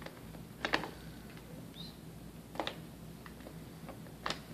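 Light handling clicks and knocks from a plastic anatomical leg model being turned in the hands: three short sharp ones, the loudest about a second in, one halfway and one near the end, over a steady low room hum.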